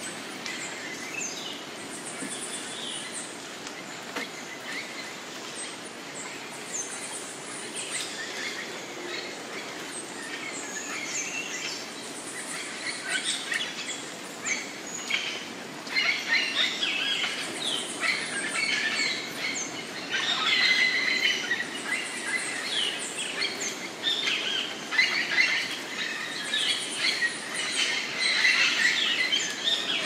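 A chorus of Costa Rican rainforest birds chirping and calling together, many overlapping short calls over a steady background hiss. It grows busier and louder about halfway through.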